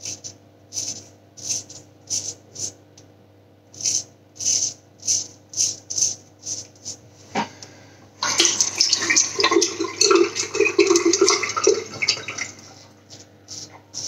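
Weck Sextoblade straight razor scraping through lathered stubble in a run of about fifteen short strokes, with a blade he thinks is dull. About eight seconds in, a tap runs for some four seconds.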